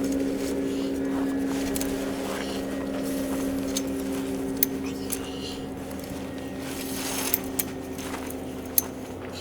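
An engine hums steadily at a constant pitch throughout. About five sharp clicks or knocks come in the second half, from the metal frame of a pop-up canopy being pulled out.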